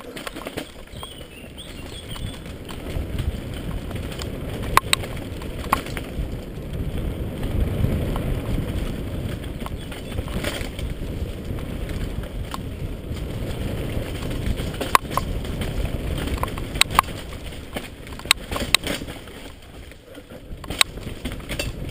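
Mountain bike riding fast down a dirt singletrack, heard from a camera mounted on the bike: a steady rumble of the tyres over the ground with sharp clacks and knocks from the bike over bumps and roots. The rumble builds after the first couple of seconds and eases near the end.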